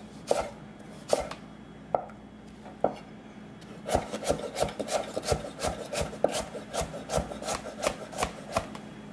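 Chef's knife chopping peeled cucumber on a wooden cutting board. A few separate knocks of the blade on the board come over the first three seconds, then a quick, steady run of chops, about three a second, starts about four seconds in.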